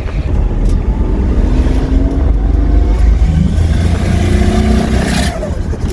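Turbocharged Holden VL Commodore engine accelerating hard under boost, its revs climbing twice, with a brief loud rush of air about five seconds in. The engine has been missing once it comes on boost, which the owners hope is clearing up.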